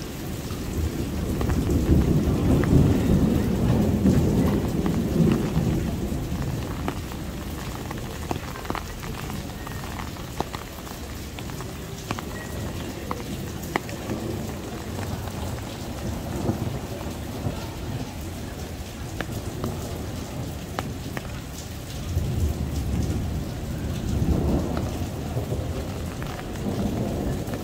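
Heavy rain of a downpour falling steadily, with individual drop hits, and a long roll of thunder that builds in the first couple of seconds and dies away by about six seconds in. A second, weaker rumble of thunder comes near the end.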